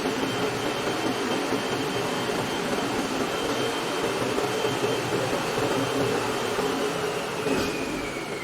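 Large floor grinder running steadily: a steady machine noise with a high whine over a low hum, the whine dropping in pitch near the end.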